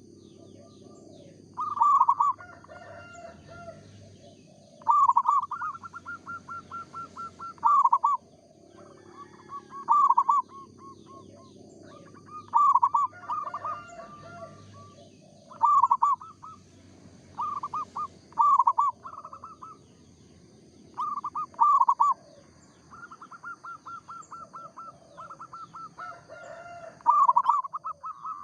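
Zebra doves (perkutut) cooing: phrases of rapid staccato notes ending in a few stronger coos, repeated every few seconds, with a fainter lower-pitched bird answering. A faint steady high whine runs underneath.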